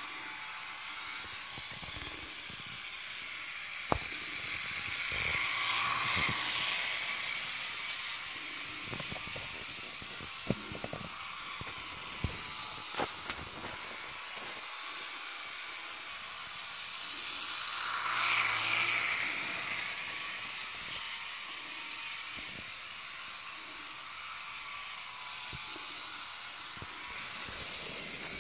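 Jouef model train locomotive running round a loop of track, its motor freshly serviced: a steady whirring of the small electric motor and the wheels on the rails. It swells twice as the train passes close, with a few sharp clicks in between.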